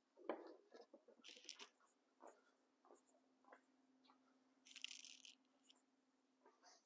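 Faint, scattered clicks, light knocks and rustling from tools and drill bits being handled, with a brief hiss about five seconds in.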